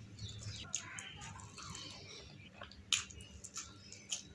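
Close-miked chewing of a mouthful of puri, the deep-fried puffed wheat bread, with irregular crisp crunches and wet mouth sounds. Sharp crunches come at about one second, three seconds and four seconds in.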